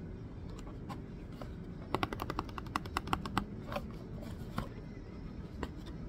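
Cardboard takeaway food box being opened by hand: a quick run of crisp clicks and crackles lasting about a second and a half, then a few single clicks.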